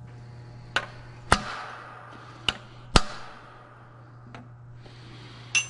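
A hammer striking a chisel against the steel wear sleeve on a Detroit Diesel Series 60 crankshaft's rear end: about six sharp metal strikes at uneven spacing, two of them louder and ringing. The blows swell the sleeve so it loosens and can slide off the crank.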